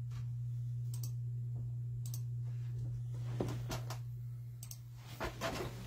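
Scattered keystrokes on a computer keyboard, a few separate clicks about a second apart, over a steady low electrical hum.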